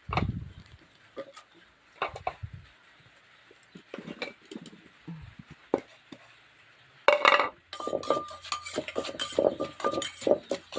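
Papaya salad being pounded and mixed in a mortar: a few scattered knocks of pestle and spoon, then from about seven seconds in a fast, steady clatter of knocks with a slight ring.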